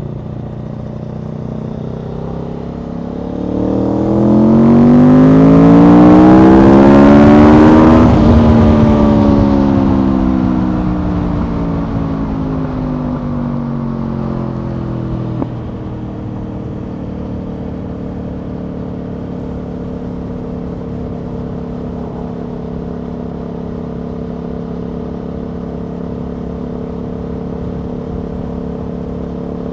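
Aprilia Tuono V4's V4 engine accelerating hard in one gear, its pitch climbing smoothly for about four seconds, with a rush of wind at the peak. The throttle then closes and the revs fall slowly for several seconds. After a short click the engine settles to a steady cruising note.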